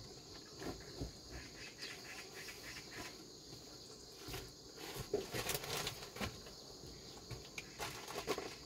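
Faint, steady, high-pitched chirring of insects in the background, with scattered light rustles and knocks, the clearest about five seconds in and again near the end.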